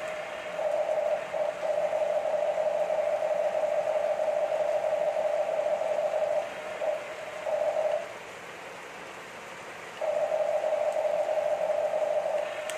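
Steady electric whine from a Huina radio-controlled toy excavator's motor, switching on and off in stretches: about six seconds on, two short bursts, a two-second gap, then on again near the end. The boom is pressing the bucket into the floor, so the motor is straining under load.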